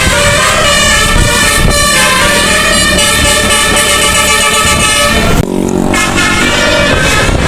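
Bus's nine-trumpet musical air horn (telolet) playing a loud tune, several horn tones sounding together and stepping to new notes every second or so. About five seconds in, the high tones drop away briefly and a single lower horn note is left.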